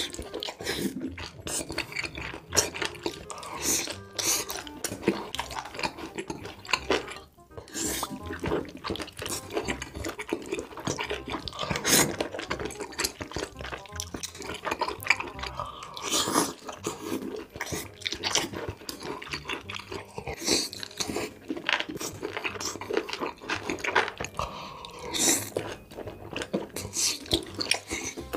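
Close-miked eating sounds of spicy braised octopus and seafood: wet chewing, biting and many small irregular smacks and clicks, with background music underneath.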